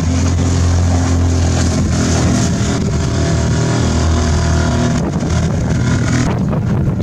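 Small 3.5 HP outboard motor running steadily as the skiff passes close by, over wind on the microphone and choppy water. The engine tone drops away shortly before the end.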